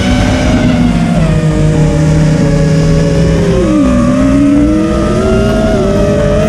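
FPV racing quadcopter's brushless motors and propellers whining, the pitch sliding up and down with the throttle: it drops about four seconds in, then climbs back up.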